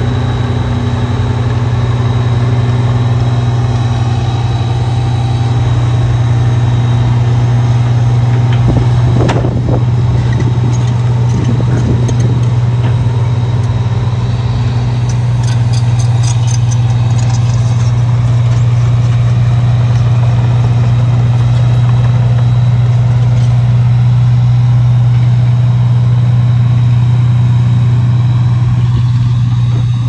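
Timberwolf TW 230VTR tracked wood chipper's engine running at a steady speed with a constant low hum. A brief knock comes about nine seconds in, and some light clattering follows a few seconds later.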